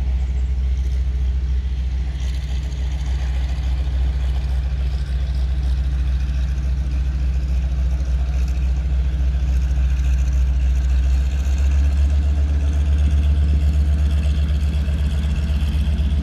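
Float plane's piston engine and propeller running steadily as it taxis on the water, growing louder about eleven seconds in.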